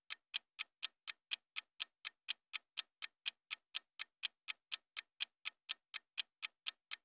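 Countdown timer sound effect: steady clock-like ticking, about four ticks a second.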